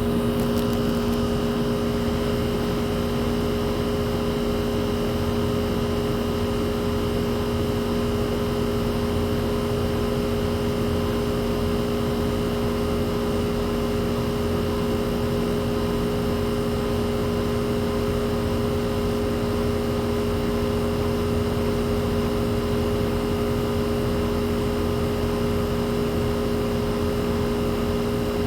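Outdoor central air-conditioning condensing unit running steadily: its Copeland compressor hums with a few steady tones over an even rush of noise.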